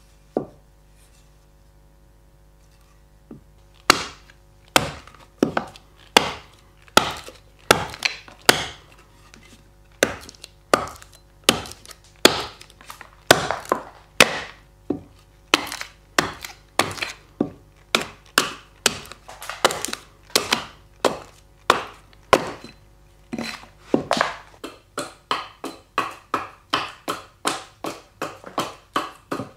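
Hand axe chopping a dry cherry-wood spoon blank held upright on a chopping block: one knock, then from about three seconds in a steady run of sharp chops, roughly one to one and a half a second, coming quicker and lighter near the end as the blank is hewn to the spoon outline.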